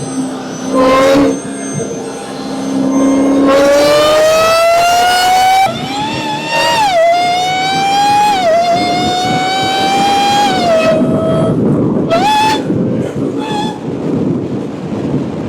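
Supercharged car engine revving once, then accelerating hard with a high supercharger whine that climbs in pitch and drops back at each of several gear changes, before easing off into a rougher, noisier run with a couple of short blips.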